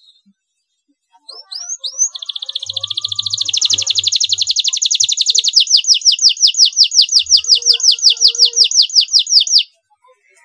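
Domestic canary singing: a few rising chirps, then a long rolling trill of rapid rising notes that slows and grows louder before breaking off sharply near the end.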